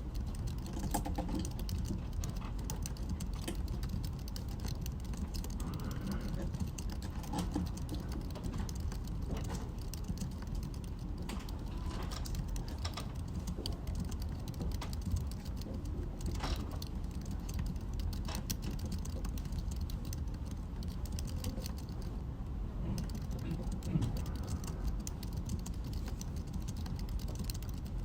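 Typing on a computer keyboard: a run of irregular key clicks over a steady low background hum.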